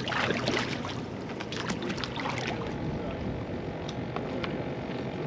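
Water lapping and sloshing around a paddle board on open water, with small scattered splashes and a faint steady hum underneath.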